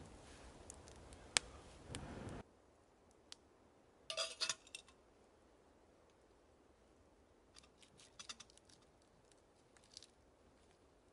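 Breath blown onto a small campfire to fan the flames, a steady rush that cuts off suddenly after about two and a half seconds. Then a metal camping kettle and its wire handle clink and rattle as the kettle is moved on its hanging cord over the fire: a quick cluster of clinks about four seconds in, and lighter ticks later.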